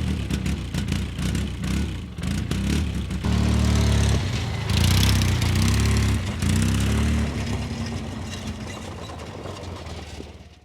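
UTV engine running, its pitch shifting a few times as it is revved, then fading out near the end.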